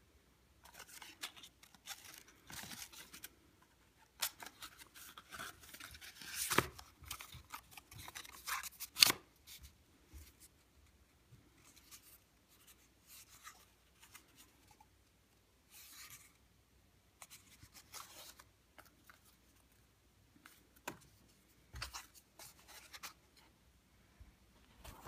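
Irregular rustling, scraping and handling noise as a paper-tube egg-drop contraption with straw legs is handled up close, with two sharp knocks about six and a half and nine seconds in.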